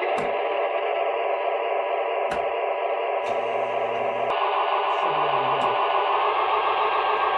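Background music with steady held tones, changing in texture about four seconds in, with a few short clicks.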